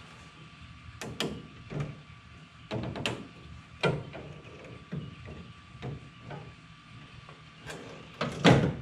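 Aftermarket mesh grille knocking and clattering against the pickup's grille surround as it is pushed and fitted into place, in irregular knocks with a louder cluster near the end.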